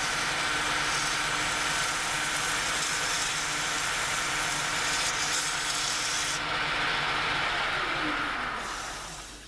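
Emery cloth rubbing on a copper chimney cowl spinning on an expanding mandrel in a lathe: a steady abrasive hiss over the machine's faint hum. Near the end it fades away as the lathe runs down, its pitch falling.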